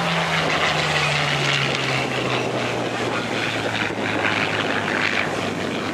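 Supermarine Spitfire Mk IX's Rolls-Royce Merlin V12 engine heard in flight as the fighter passes. Its note falls steadily in pitch over the first three seconds or so, then holds low as the aircraft draws away.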